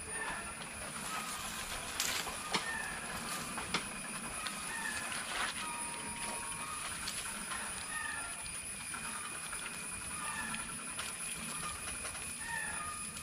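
Steady rushing of river water, with short bird chirps repeating throughout and a few sharp clicks in the first few seconds.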